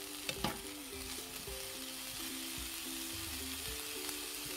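Sliced vegetables (onion, carrot, bell pepper, snow peas, spinach) sizzling steadily as they are stir-fried in a frying pan, with a couple of knocks of the utensil against the pan about half a second in. Soft background music with long held notes plays along.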